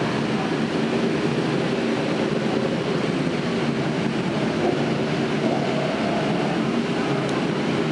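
Many superbike engines running together as the pack pulls away from the grid: a steady, dense engine drone.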